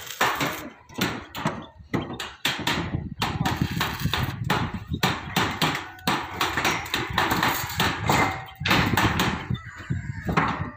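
Hammer blows and knocks on corrugated steel deck sheets, coming in quick irregular succession, a couple each second.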